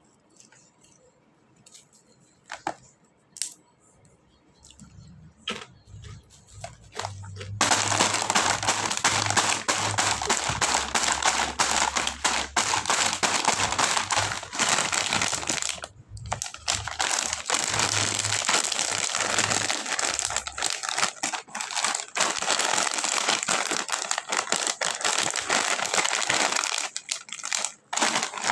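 Plastic snack packaging crinkling and crackling as it is handled. After a few faint clicks, it starts about seven seconds in and runs densely with brief pauses.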